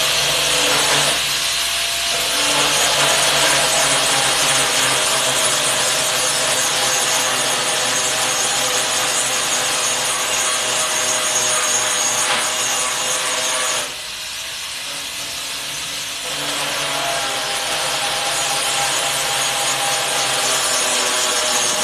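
A power grinder grinding metal: a steady motor whine under a rough grinding noise. It drops off for about two seconds about two-thirds of the way through, then picks up again.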